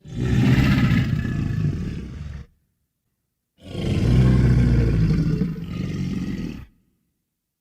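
Film-style Tyrannosaurus rex roar sound effect: two long, deep roars, the first lasting about two and a half seconds and the second about three seconds after a pause of about a second.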